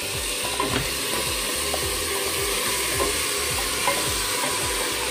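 Marinated chicken and its marinade poured into a hot pot of frying onions, sizzling steadily.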